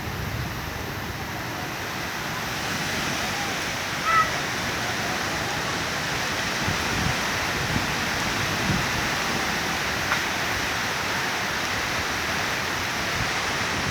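Strong hurricane-force wind blowing in a steady rush of noise, with a brief sharp sound about four seconds in and a few faint knocks later.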